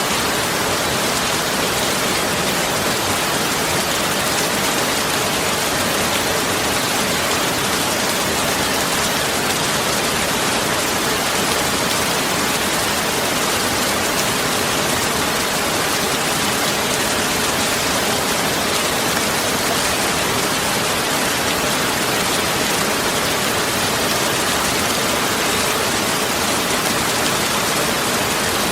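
Steady, even rushing noise like heavy rain, unchanging throughout with no distinct drops or events.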